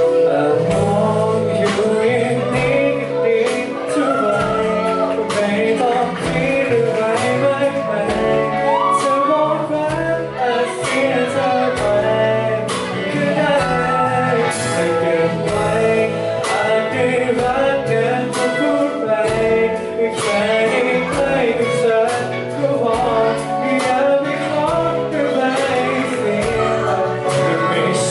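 Live band playing a pop song with a singer, over a steady drum beat.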